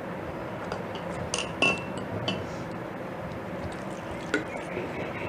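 A metal spoon clinking and scraping against a stainless-steel bowl in irregular strokes while stirring gram flour and water into a batter, with water being poured in from a plastic bottle.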